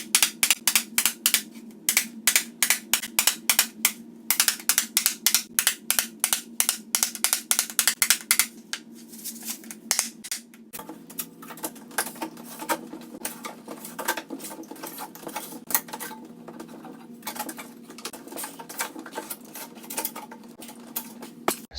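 Hand-tool work on a wooden piece: quick, evenly spaced strokes at about four a second, changing about halfway through to a denser, less regular scraping, over a steady low hum.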